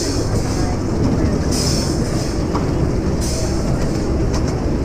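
Miniature ride-on train rolling along its track, heard from aboard: a steady rumble and clatter of small wheels on the rails.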